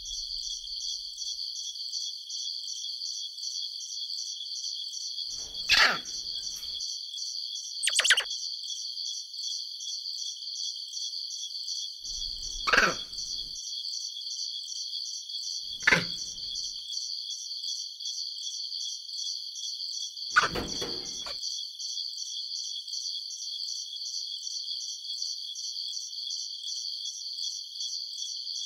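A steady, fast-pulsing high chirring like crickets, with five short thumps spread through it, one of them sliding down in pitch.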